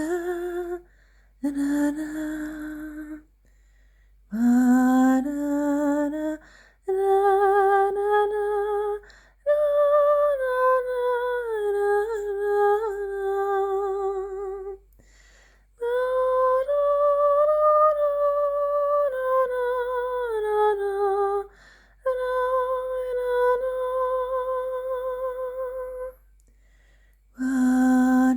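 A wordless, improvised hummed melody in slow, held notes with a slight vibrato. It comes in several phrases of a few seconds each, with short pauses for breath between them.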